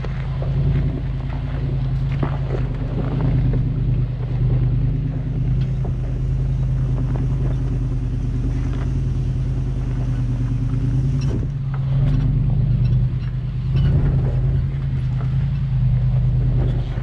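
Off-road SUV engine running steadily, with scattered knocks and clunks over it.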